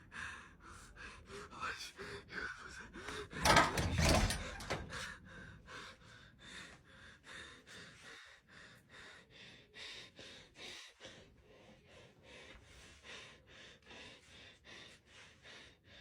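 A person breathing fast and hard, about three short breaths a second, with a loud thump or rustle about three and a half seconds in.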